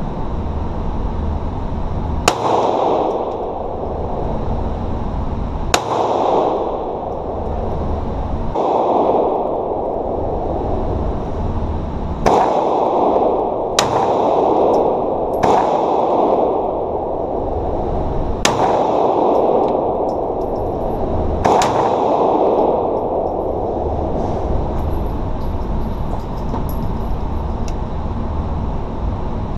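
Pistol shots fired one at a time in an indoor range, about eight in all, spaced a few seconds apart, each followed by a ringing echo off the range walls, over a steady background noise.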